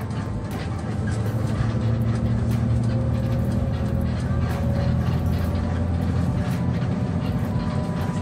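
Steady low drone of an intercity bus's engine and tyres heard from inside the cabin while it cruises on the highway. It grows louder about a second in.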